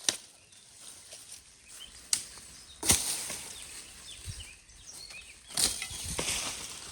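A few sharp cracks or knocks, the loudest about three seconds in and another just before six seconds, each followed by a brief rustling hiss.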